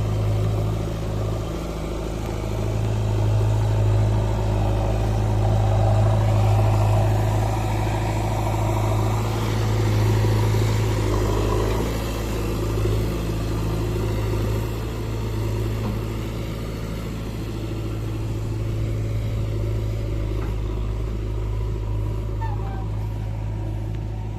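Heavy diesel engine running steadily with a deep hum, growing louder a few times as it works under load.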